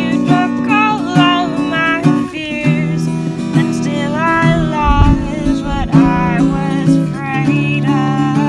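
Acoustic guitar strummed in steady chords, with a wordless sung melody wavering over it. There is a brief low thump about five seconds in.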